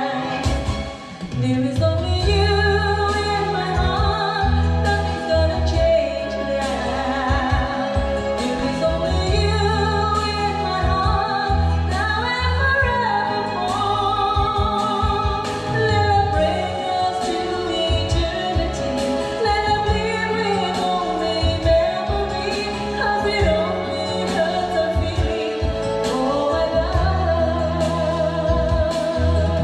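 Karaoke: a voice singing a wavering melody over a backing track with a strong, steady bass line.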